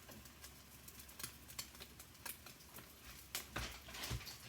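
Faint scattered clicks and light taps of a utensil on a frying pan with an egg cooking in it, with a few louder knocks near the end.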